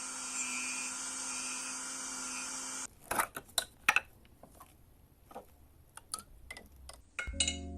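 About three seconds of steady hiss with a faint hum, which cuts off suddenly. Small metal Zippo lighter parts then click and clink sharply and irregularly as they are handled. Music starts near the end.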